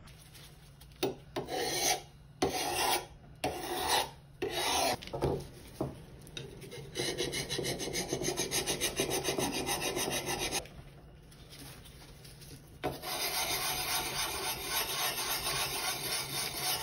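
Hand abrading on a vintage draw knife, a rasping scrape. A few separate slow strokes come first, then two long runs of quick, even back-and-forth strokes with a short pause between them.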